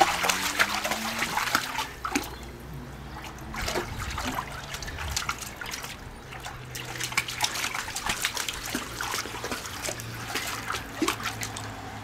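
A husky wading through shallow water, its paws splashing irregularly, in clusters near the start and again through the second half.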